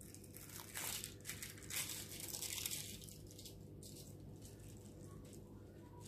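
Thin plastic backing sheet crinkling as the pastry on it is lifted and rolled over the sausage filling. The rustle is loudest in the first three seconds, then fainter.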